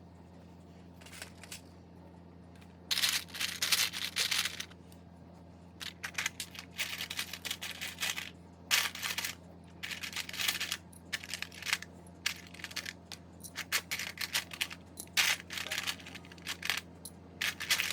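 Loose plastic clone Lego bricks clattering and clicking as hands rummage through a pile of parts, in irregular clusters of rattling over a steady low hum.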